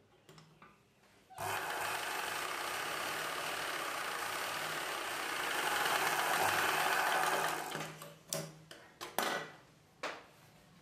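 Ralson sewing machine running steadily for about six seconds while stitching a seam, then stopping. A few short rustles follow as the fabric is moved.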